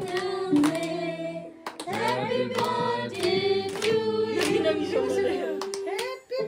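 Several voices singing a song together, holding long notes.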